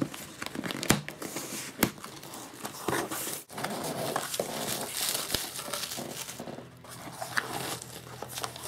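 A cardboard shipping box is opened by hand, with a few sharp snaps in the first seconds. Then the plastic bubble wrap around the contents crinkles and rustles as it is handled.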